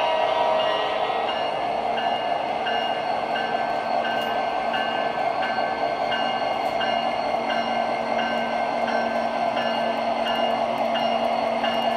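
O gauge model coal hoppers rolling slowly along three-rail track: a steady rolling rumble with a constant hum, and a short high tone repeating about every two-thirds of a second.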